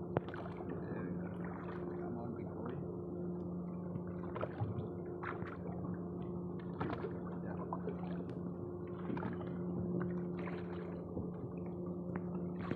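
Water sloshing and splashing irregularly beside a boat, over the steady hum of the boat's idling engine.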